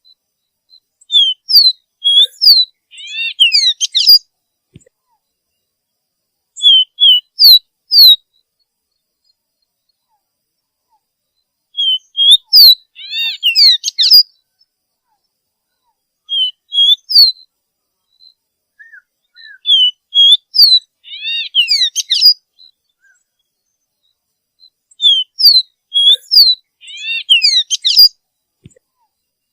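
Songbird song from a masteran training recording: quick, high whistled and chirping notes, some rising and some falling, in phrases of one to three seconds. A phrase comes about every five or six seconds, with quiet between.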